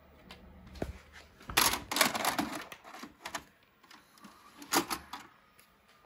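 A VHS cassette pushed into a VCR, with the deck's loading mechanism taking it in: a run of mechanical clicks and clunks, the loudest about a second and a half to two and a half seconds in, and another cluster near five seconds.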